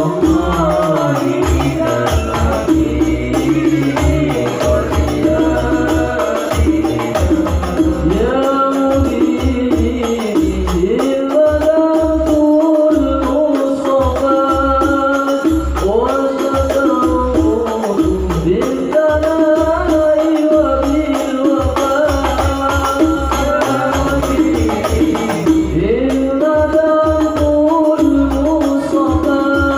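Male group singing an Islamic sholawat song into microphones, the melody held in long gliding phrases over a steady, rhythmic low percussion beat.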